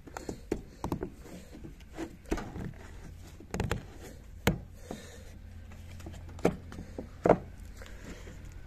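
Plastic lid being pressed onto a Tommee Tippee sippy cup, which is handled on a wooden plank: scattered clicks and knocks. The loudest sharp knocks come at about three and a half, four and a half and seven seconds in.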